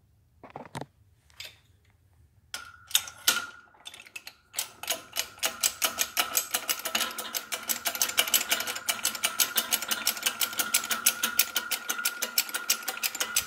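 Hydraulic bottle jack on a shop press being pumped to run the ram down: after a few scattered knocks, a fast, even clicking of about seven a second sets in some four seconds in, over a steady high whine.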